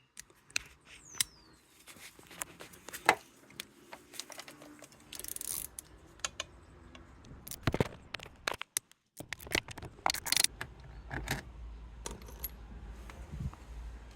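Metal tools and parts clinking, knocking and scraping in an irregular run of sharp clicks, with a short hiss-like rustle about five seconds in.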